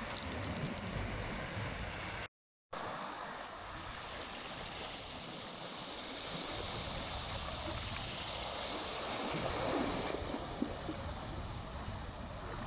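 Sea waves washing in over a pebble beach and against a stone seawall, a steady rush of surf. The sound cuts out completely for a moment about two seconds in.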